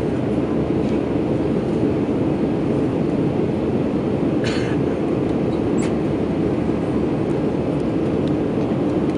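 Steady drone of an Airbus airliner in flight, the engine and airflow noise heard from inside the passenger cabin.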